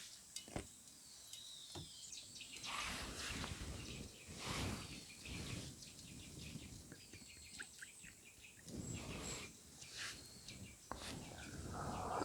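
Faint birdsong, thin high chirps here and there, over quiet forest ambience, with occasional soft clicks and rustles.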